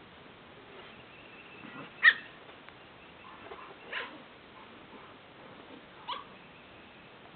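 Small dogs giving three short, high barks about two seconds apart, the first the loudest.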